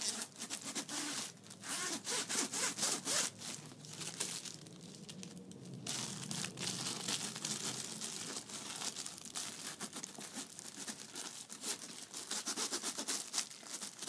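Wax paper rubbed briskly back and forth along a stiff handbag zipper, a fast rasping rub with paper crinkle, to wax the teeth so the sticky zipper glides. The rubbing eases into a short lull around five seconds in.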